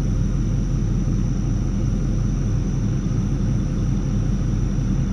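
A steady, unbroken low rumble, with faint steady high tones above it.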